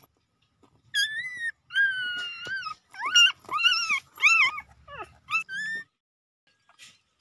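Five-day-old puppy crying: about eight high-pitched squealing whines, several rising and falling in pitch, the longest about a second long.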